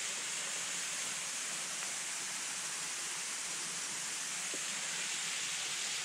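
Small waterfall falling onto rock: a steady, even rush of water.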